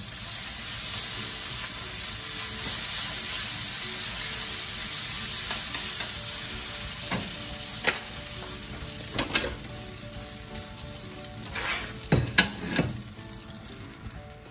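Yakisoba noodles and sausages sizzling in a frying pan on a gas stove as the added hot sauce cooks in, a steady hiss that eases after about seven seconds. A few sharp knocks come near the end.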